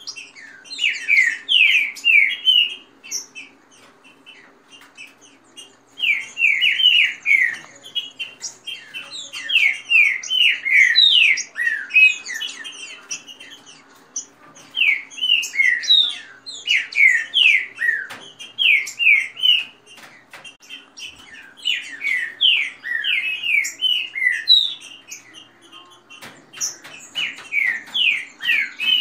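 Caged green-winged saltators (trinca-ferro) singing in bursts of quick, loud, down-slurred whistled phrases, each a second or three long with short pauses between. Under the song runs a faint steady low hum.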